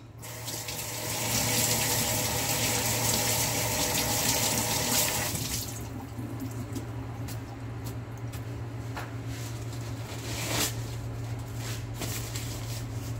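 Kitchen tap running into the sink while hands are rinsed, for about five seconds, then shut off; quieter handling sounds follow over a steady low hum.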